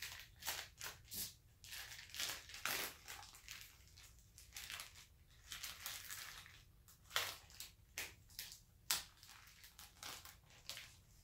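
Plastic meat packaging being cut open with a knife and pulled off a raw brisket: irregular crinkling and rustling of the plastic, with a couple of sharper crackles near the end.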